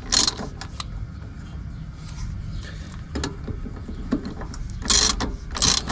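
Hand-tool work on suspension bolts: a few short scraping clicks from a wrench or ratchet, one near the start and a cluster about five seconds in, over a steady low hum.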